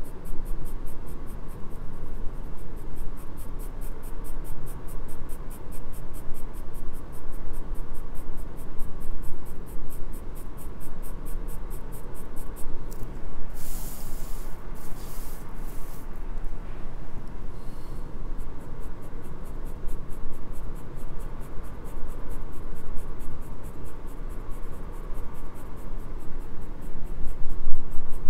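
Graphite pencil scratching across drawing paper in quick, repeated shading strokes. About halfway the strokes pause for a few seconds and there are several brief rustles, then the shading resumes.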